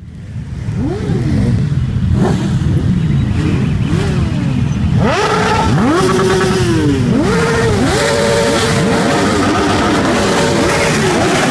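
Many motorcycle engines running together, with riders repeatedly blipping their throttles: overlapping revs rise and fall in pitch over a steady rumble of idling engines. The sound fades in over the first second, and the revving grows busier about halfway through.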